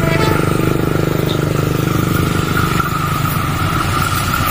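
Diesel-electric locomotive approaching at the head of a passenger train, its engine a steady low pulsing drone, with a steady high whine above it. The tail of a horn blast fades out just after the start.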